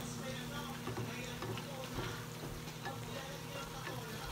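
Scrambled eggs sizzling in a frying pan on a gas burner, with a steady crackle and a spatula stirring and scraping them.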